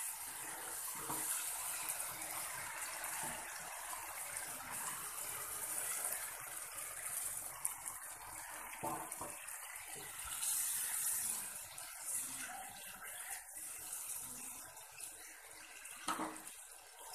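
Tomato and yogurt masala sizzling in a non-stick pan with a steady hiss as a little water is added and stirred in with a spatula, thinning it into a gravy.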